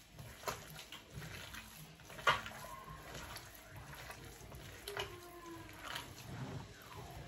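Hands kneading a wet mixture of beef mince, blended vegetables and tomato paste in a ceramic bowl: soft, irregular squelching strokes, with a sharper one about two seconds in.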